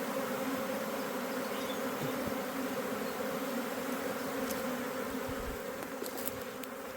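Swarm of honeybees buzzing in a steady, pitched hum around a new hive box, many of them fanning their wings to spread the queen's scent as they move inside: a sign that the queen is in the box.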